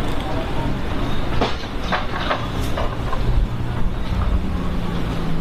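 Street noise: a steady low mechanical hum with a few clattering knocks between about one and a half and three seconds in.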